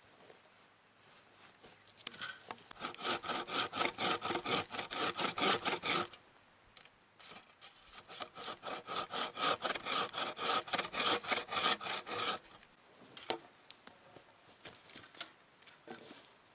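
Wooden-framed bow saw cutting through a log with rapid, even back-and-forth strokes, in two runs of about four and five seconds with a short pause between. A few light knocks follow near the end.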